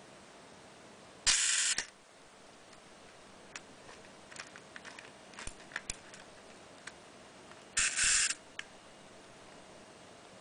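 Zorki-4 rangefinder camera's cloth focal-plane shutter fired twice, about six seconds apart, each release a mechanical burst about half a second long. In between, a run of small faint clicks as the winding knob is turned to re-cock the shutter.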